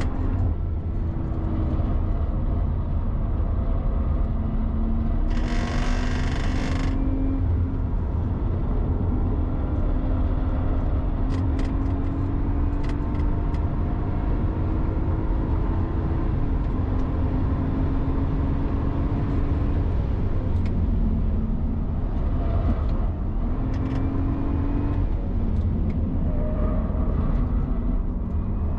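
Car engine being driven hard on a race circuit, its pitch rising steadily several times and dropping back as it pulls and shifts, over heavy road and wind rumble. A loud hissing burst lasts about a second and a half, about five and a half seconds in, with scattered short clicks later.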